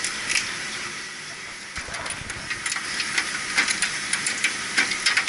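Steady hiss in the background. From about two seconds in, a low thump is followed by a run of sharp metallic clicks and knocks: hand tools and hardware being handled in a chiller's electrical panel.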